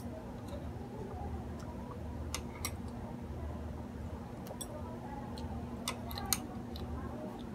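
Metal chopsticks tapping against a plate of noodles, a handful of light, sharp clicks scattered through, the loudest near the end, over a steady low hum.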